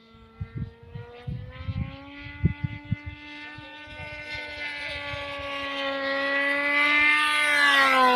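Fuel-engined model pylon-racer plane in flight: a steady, high-pitched engine note that grows louder as the plane approaches, then drops in pitch near the end as it passes by. Scattered low thumps fall in the first few seconds.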